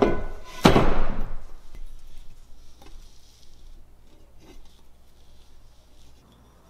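Metal tube set down on a workbench: two knocks about 0.7 s apart, the second louder, each ringing on and fading over a couple of seconds. Faint pencil scratching on the tube follows.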